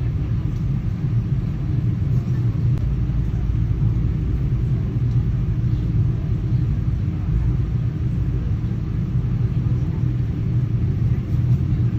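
Steady low rumble of a moving airplane, even and unbroken, with its weight in the deep bass.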